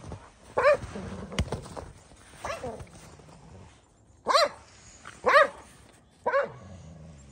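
Corgi barking in short, high-pitched single barks, five in all, roughly a second apart, the second one fainter.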